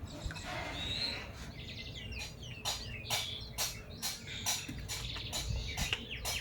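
Small birds chirping in many quick, short calls.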